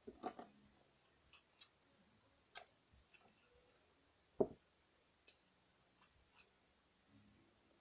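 Faint, scattered clicks and taps of small objects being handled, with one louder knock about four and a half seconds in.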